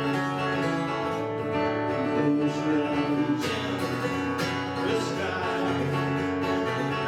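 Acoustic guitar strummed in a western song, with a singing voice.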